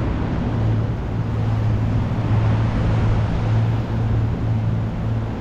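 An engine running steadily: a low, even hum with a rushing noise over it.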